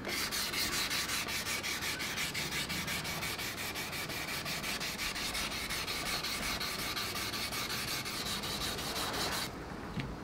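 Sandpaper on a hand sanding block rubbing back and forth over a painted plastic motorcycle fairing, in quick, even, rasping strokes that stop near the end.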